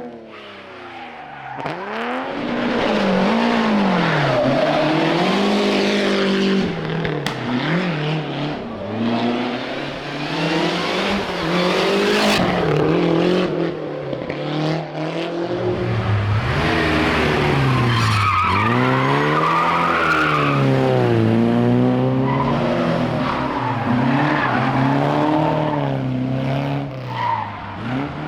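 Rally car engine driven hard on a special stage: the revs climb and drop again and again through gear changes and braking. About two-thirds of the way through, a squeal comes in over the engine, fitting tyres squealing in a corner.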